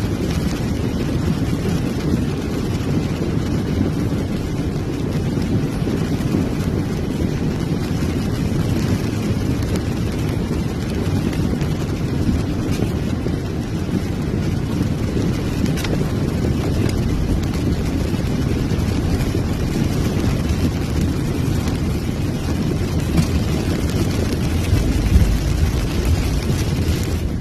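Steady low rumble inside a car driving through a flooded street: engine and floodwater washing against the car, with a louder surge near the end.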